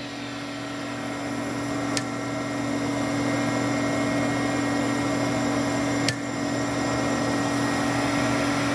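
American Turnmaster ATV-618-TR toolroom lathe running its cross-slide power feed: a steady machine hum that grows louder over the first three seconds as the feed speed is turned up, then holds steady. Two sharp clicks come about four seconds apart.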